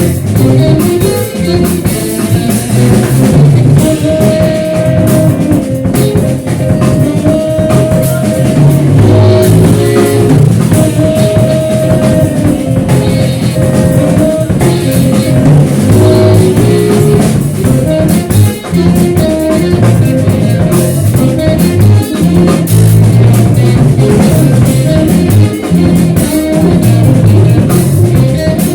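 Rock band playing live: guitar over bass and a drum kit, with a steady beat and repeated held guitar notes.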